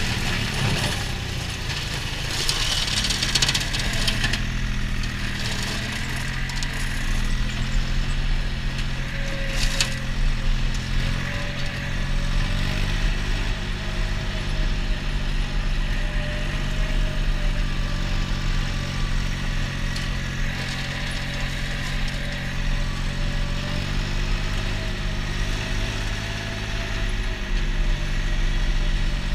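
Compact tractor engine running steadily as it drives, its note shifting a little now and then. A brief rustling scrape a few seconds in as it brushes past hedge growth.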